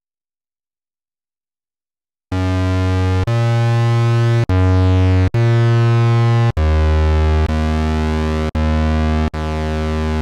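Two Behringer 2600 Blue Marvin analog synthesizers sounding together with two oscillators mixed, playing a run of held low notes, roughly one a second. The notes come in after about two seconds of silence.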